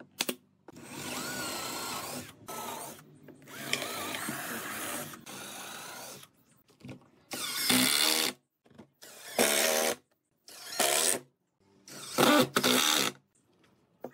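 A pneumatic nail gun fires a sharp shot at the start. Then a cordless drill runs for several seconds, followed by four short bursts of about a second each as it drives screws into the wood.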